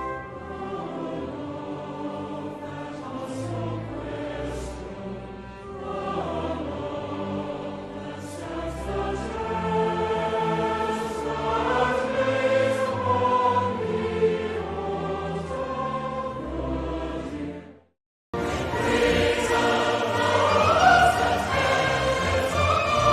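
Choir singing with an orchestra, a stately British patriotic anthem. About 18 seconds in it cuts off sharply into a moment of silence, and a new orchestral piece starts.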